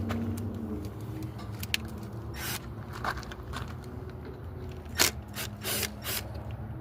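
Scattered clicks and short scraping sounds of hand work on a Chevrolet Trailblazer's tail light assembly, over a steady low hum. The sharpest click comes about five seconds in.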